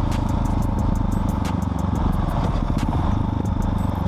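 Husqvarna 701's single-cylinder four-stroke engine running through an Arrow aftermarket exhaust under way, holding a steady pitch.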